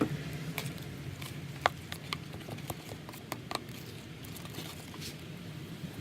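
Glue slime being mixed in a bowl, giving irregular sticky clicks and squelches as contact lens solution activates it and it thickens.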